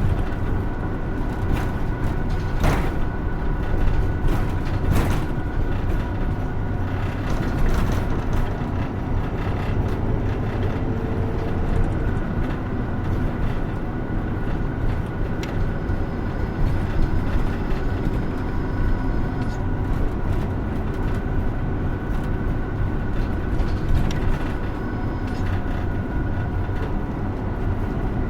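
Hino Rainbow II medium-duty diesel bus heard from inside the cabin while under way: a steady engine and road drone with a faint constant whine. A few sharp knocks and rattles of the body come at about 3, 5, 8 and 24 seconds.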